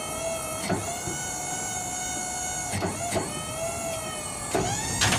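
Bed-lift motor whining steadily as it tilts the pickup bed up. The whine is broken several times by brief clicks where the pitch dips and recovers.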